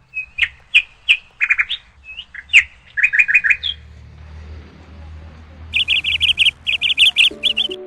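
Small birds chirping: scattered groups of short, sharp chirps, then a fast run of repeated chirps in the last two seconds.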